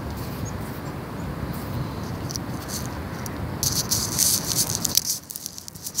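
Camera handling noise: rustling and rubbing against the microphone as the camera is moved and set down, with a burst of crackling near the end, then it goes quieter.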